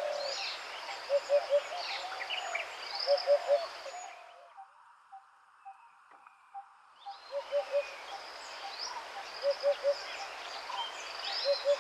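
Tropical forest bird chorus: many high chirps and whistles, with a low hooting call repeated in quick groups of three every couple of seconds. About four seconds in the sound fades almost away for two to three seconds, then returns.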